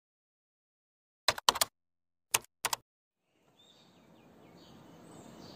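Four sharp clicks in two quick pairs, like keyboard or typewriter keystrokes, in dead silence; faint room hiss comes up near the end.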